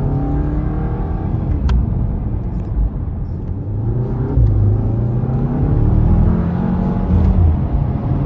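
A 2017 VW Golf R's turbocharged 2.0-litre four-cylinder engine pulls while driving, its note rising and falling with the revs. The engine is breaking up from a misfire on cylinder 3 after a Stage 1 ECU tune.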